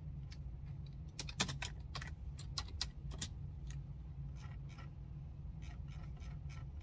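Typing on a computer keyboard: a quick run of key clicks, then softer, more spaced keystrokes, over a steady low hum.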